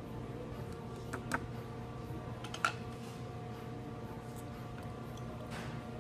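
Steady room hum of a small restaurant with a few light clicks of tableware: two soft clicks a little over a second in, then a sharper clink about halfway through.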